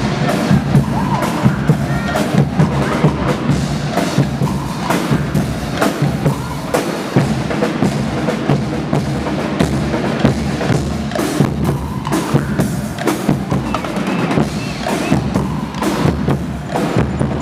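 Guggenmusik band's drum section, bass drums and snare drums, playing a loud, driving marching beat.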